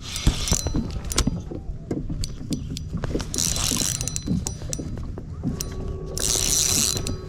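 Fishing reel being cranked, its gears clicking steadily, with two short hissing bursts along the way.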